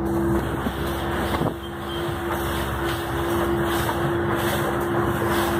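Small power boat underway at cruising speed, heard from inside the pilothouse: a steady engine hum under the continuous rush of water along the hull and wind through the open windows.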